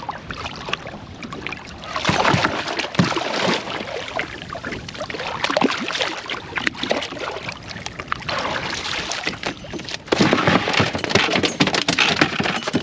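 A just-landed smoothhound thrashing in a small boat as it is handled, making irregular scuffing, slapping and knocking noises. The noise is loudest about two seconds in and again near the end.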